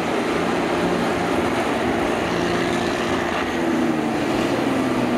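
Engines of several John Deere combines running hard as the machines push against each other, a steady mechanical drone with the engine pitch drifting slowly up and down.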